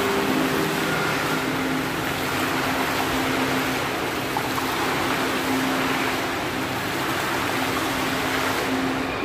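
Water jets of an ornamental fountain splashing steadily into its pool, an even rushing hiss.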